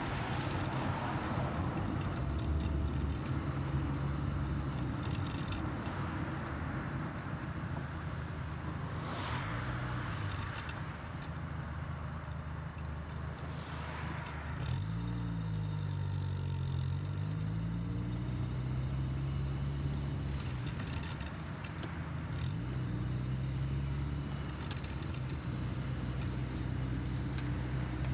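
1984 VW Golf Mk2's carbureted four-cylinder petrol engine running while driving slowly through town, its pitch steady most of the time and rising and falling about halfway through as the speed changes.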